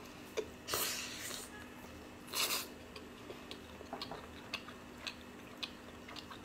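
Close-miked eating sounds: chewing and sucking sticky sweet and sour pork ribs and sauce off fingers. There are two louder wet smacks, about a second in and again about two and a half seconds in, with small mouth clicks between them.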